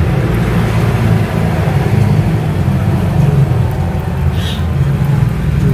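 A steady, loud low rumble with a short faint hiss about four seconds in.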